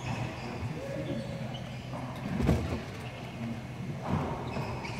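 Racquetball rally: the ball smacks off racquets and the court walls, loudest about two and a half seconds in and again about four seconds in, with sneakers squeaking on the hardwood floor. The enclosed court makes it all echo.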